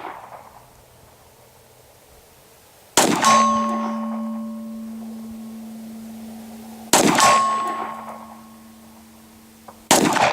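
Three shots from a 9mm Glock 17 pistol, about three to four seconds apart, the last near the end. After each of the first two, a steel gong target rings on with a steady tone for several seconds, the sign of a hit.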